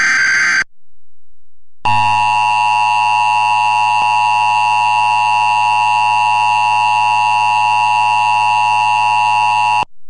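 An Emergency Alert System SAME header data burst, a short warbling digital screech, ends just under a second in. After a brief gap comes the EAS attention signal, the steady two-tone alarm of 853 and 960 Hz played together. It starts about two seconds in, holds for about eight seconds and cuts off sharply near the end.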